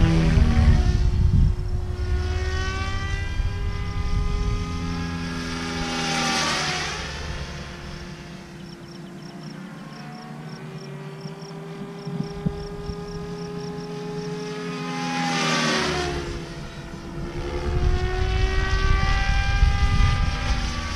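SAB Kraken 580 electric RC helicopter in flight: the main and tail rotors and electric motor make a steady whine that swells and drops in pitch as the helicopter passes by, about six seconds in and again near sixteen seconds.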